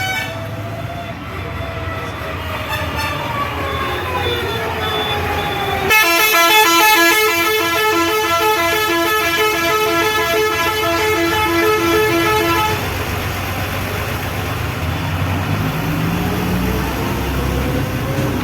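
Road traffic: vehicle engines running with slowly gliding pitch, then from about six seconds in a vehicle horn blares in quick repeated pulses for about seven seconds before the steady traffic rumble returns, an engine climbing in pitch near the end.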